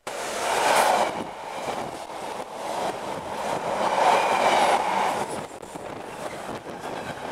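EWS Class 66 diesel locomotive, with its two-stroke V12 engine, passing close by at speed, followed by intermodal container wagons rolling past with their wheels knocking on the rails. It is loudest about a second in and again around four to five seconds, then eases off as the wagons keep passing.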